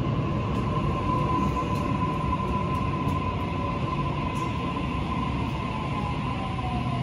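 Sydney Trains Waratah A set electric multiple unit running in along the platform, slowing, its IGBT-VVVF traction inverters giving a steady whine over the wheel and motor rumble. A second, lower inverter tone slides down in pitch near the end as the train brakes.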